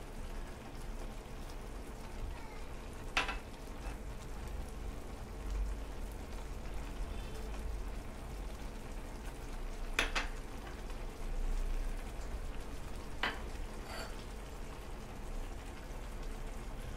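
Minced meat sizzling and bubbling in its own juices in a steel pan, a steady faint sizzle. A few short sharp taps sound over it, about four in all, as small bowls of spices are tipped into the pan.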